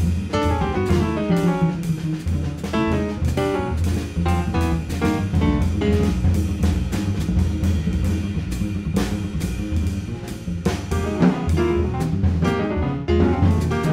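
Jazz piano trio playing: grand piano, double bass and drum kit with cymbals together, with a falling piano run near the start.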